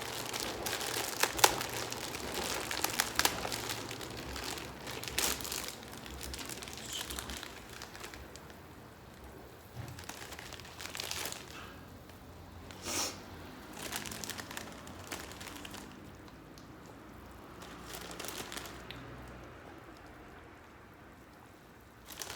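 A plastic packet of Korean instant ramen noodles crinkling as it is handled and opened, with the crunchy snapping of the dry noodle block being broken up; busy at first, then sparser and fainter after about eight seconds.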